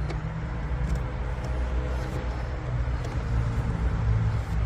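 Steady low rumble of a car engine or nearby vehicle, with a few faint clicks.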